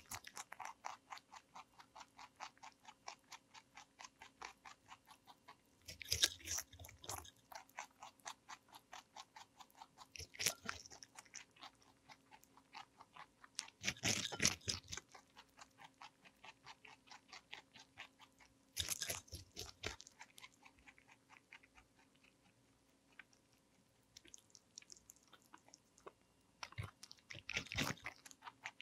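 A lionhead–Dutch mix rabbit chewing a whole cucumber: fast, even chewing at about four to five chews a second, broken every few seconds by a louder crunchy bite, with a short pause about three quarters of the way through.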